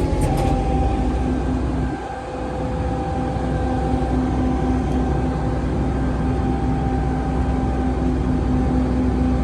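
Flatbed tow truck's engine running steadily, a constant hum with a few held tones.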